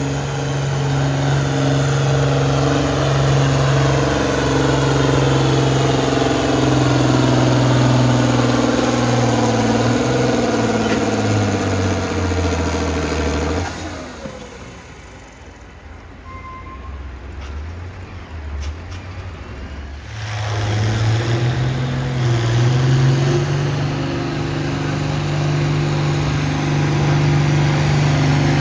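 Turbocharged diesel tractor engine at full power pulling a weight-transfer sled, its pitch sagging as it bogs down, then cut off about 14 seconds in. A few seconds of much quieter running follow before a second pulling tractor's engine comes up to full power about 20 seconds in and runs steady to the end.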